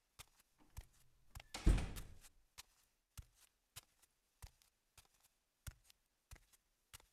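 Footsteps of one person walking on a hard floor, roughly three steps every two seconds. A door thuds shut about a second and a half in, the loudest sound here.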